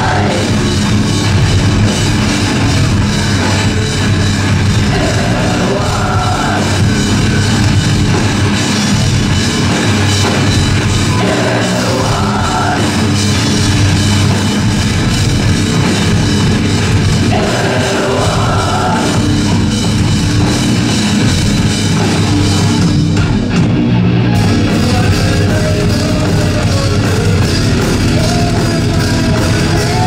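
A live rock band playing loudly, with distorted electric guitars, bass guitar and a full drum kit driving a steady beat.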